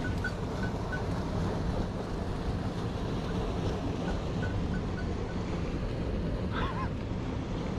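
Mountain stream water rushing steadily over rocks, with a brief wavering high chirp about six and a half seconds in.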